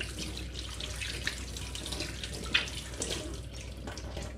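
Water running steadily from a kitchen tap into a sink, with a few light knocks; the flow stops right at the end.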